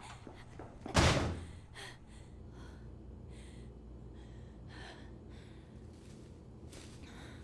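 A single heavy thud about a second in, fading quickly, followed by a run of short, breathy gasps.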